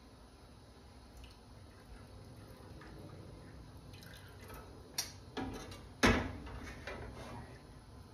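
Meat drippings trickling from a tilted pan of sliced steak into a saucepan of red wine and beef stock, with a silicone spatula scraping the pan. A couple of knocks about five seconds in, then a loud clunk of cookware on the gas stove's grate about six seconds in, the loudest sound.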